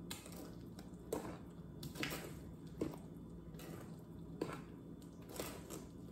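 A spatula stirring thick cupcake batter by hand in a metal mixing bowl. Soft squishing, scraping strokes come about once a second, each with a light knock against the bowl.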